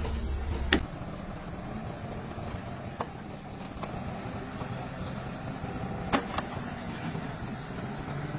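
Mobile crane's diesel engine running steadily while hoisting, with a few sharp metallic clanks: the loudest a little under a second in, others around three and six seconds in.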